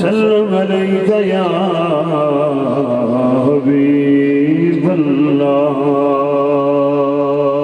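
A man's voice chanting in long drawn-out melodic phrases, sliding down in pitch over the first few seconds, rising briefly, then holding one steady note.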